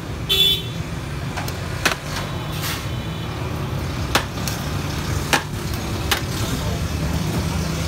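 Sharp knocks and clinks of metal cooking utensils, about six spread through, the first with a short metallic ring, over a steady low rumble of street traffic.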